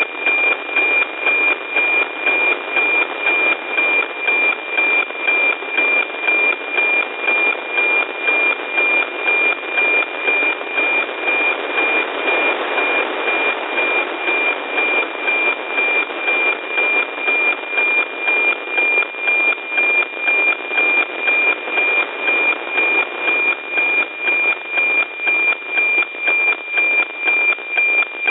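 NOAA 15 weather satellite's APT image signal, received by an RTL-SDR and demodulated as FM audio. A steady high tone under heavy static hiss, with an even tick-tock beat about twice a second from the image lines being sent. The hiss swells briefly about halfway through.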